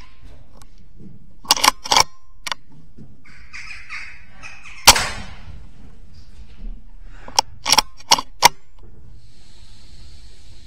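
Air rifle shot about five seconds in: a single sharp report, the loudest sound, with a short ring after it. Quieter sharp clicks and knocks come in two clusters, around two seconds in and again near eight seconds in.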